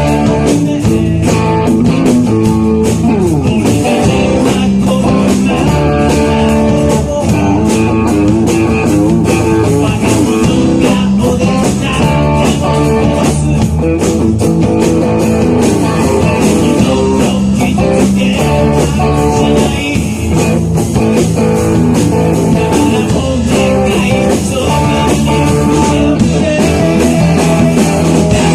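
Live rock band playing: electric guitar, bass and drums at a steady driving beat, with guitar slides about four seconds in.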